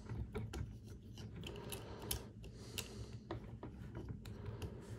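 Irregular small clicks and clacks of an action figure's parts being handled and fitted together, with a few sharper ticks among them.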